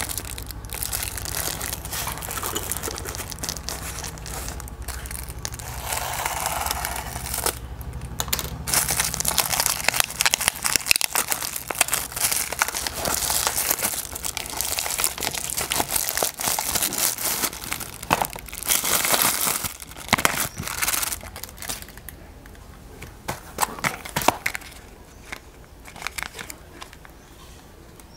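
Packaging being handled and opened: irregular crinkling, crumpling and tearing. It is busiest in the middle and thins out toward the end.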